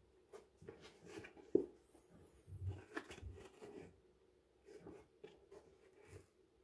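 Faint handling noise of hands working inside a new leather boot, rustling and pulling out its card and paper stuffing: irregular small rustles and clicks, with one sharper knock about a second and a half in.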